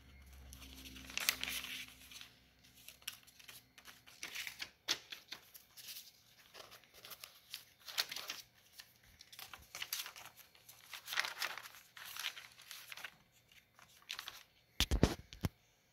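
Paper rustling and crinkling in irregular short bursts as green paper flaps in a notebook are lifted, folded and pressed flat, with a couple of dull knocks near the end.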